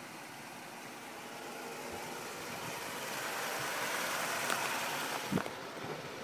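GM 2.2-litre SFI four-cylinder engine of a 2002 Chevrolet Cavalier idling under the open hood, growing louder for a few seconds and then easing off. There is a brief thump about five seconds in.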